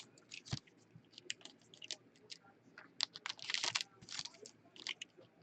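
Football trading cards being handled and flipped: an irregular run of short, sharp clicks and snaps, with a longer rustle about three and a half seconds in.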